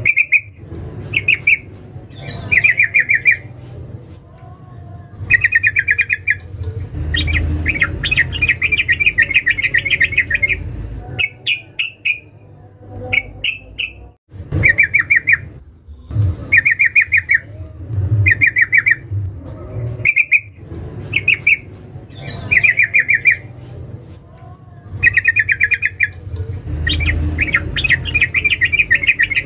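Female yellow-vented bulbul (trucukan) calling to a male: short, fast, bubbly chattering phrases repeated about every second, with two longer runs of rapid chatter, about a third of the way in and near the end.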